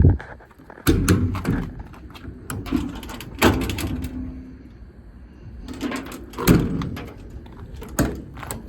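Metal compartment doors and latches on a truck's service body being opened and shut: a series of about six sharp clunks and knocks, with rattling in between.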